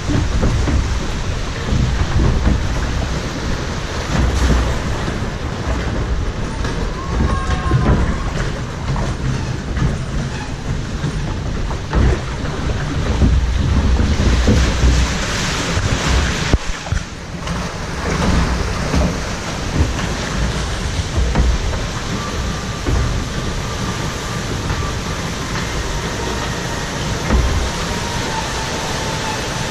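Continuous rushing and splashing water around a log flume boat, with a heavy low rumble throughout and a short lull about two-thirds of the way through.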